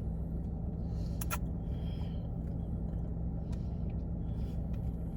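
Steady low hum and rumble, with a couple of short sharp clicks about a second in and a fainter one midway.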